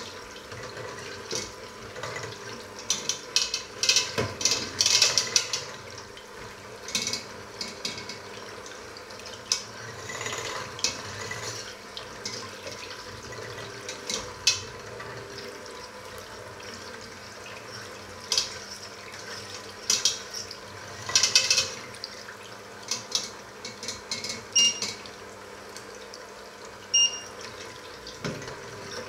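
Electric hand mixer running steadily with its beaters whisking a thin liquid mixture in a stainless steel pot: a constant motor hum and liquid swishing, with the beaters clattering against the pot's metal side at irregular moments.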